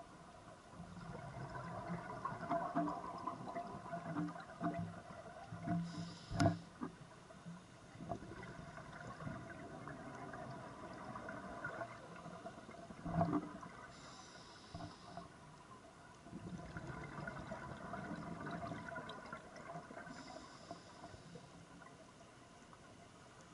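Scuba regulator breathing heard underwater: a short hiss on each inhale, three times, between longer spells of exhaled bubbles streaming out. Two sharp knocks stand out as the loudest sounds.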